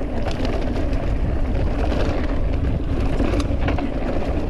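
Riding noise over rough ground: a steady low rumble with frequent rattling clicks.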